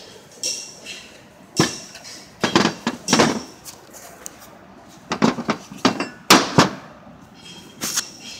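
A series of sharp, irregular knocks and clanks, in two clusters of several strikes each, with single knocks before and after them.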